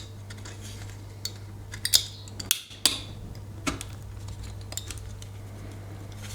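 Small metal battery cells from a 9V battery being handled, clinking and clicking against each other and hard surfaces. A few sharp clicks come scattered through, the loudest about two and three seconds in, over a steady low hum.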